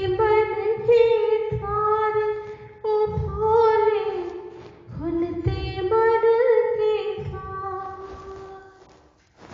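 A woman singing a Hindi devotional song to Shiva in long held notes that bend in pitch, over instrumental accompaniment. The sound fades away near the end.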